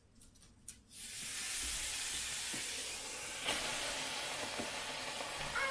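Ghee-brushed steak searing on the Cinder grill's ceramic plate, preheated to 450 °F: the sizzle starts suddenly about a second in as the meat goes down and runs on steadily. A single knock comes about halfway through.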